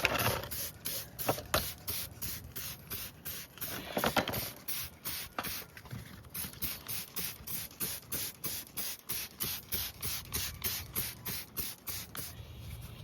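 Hand spray bottle of degreaser being squirted over and over at an even pace, about three or four sprays a second. There are two louder hits, one near the start and one about four seconds in.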